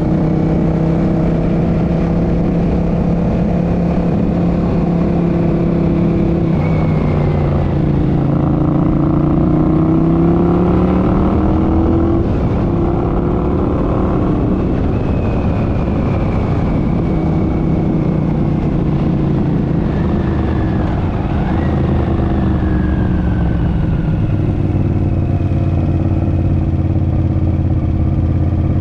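1983 Honda CX650's V-twin engine running under way, its note dipping and climbing several times with throttle and gear changes, with a high transmission whine over it.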